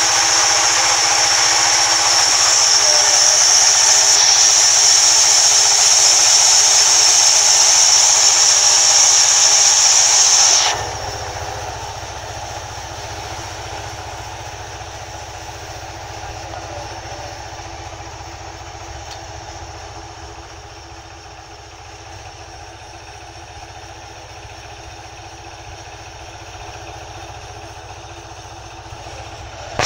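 Sawmill band saw running, with a loud, steady high hiss of the blade in the wood. About ten seconds in, the hiss cuts off suddenly and the machine runs on more quietly as a steady hum and low rumble.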